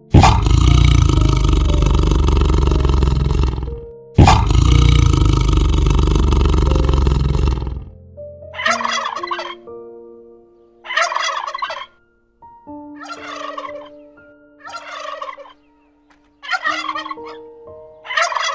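Animal calls over soft, slow music: two long, loud, rough sounds of about three and a half seconds each, then six short, rough calls spaced about one and a half to two seconds apart.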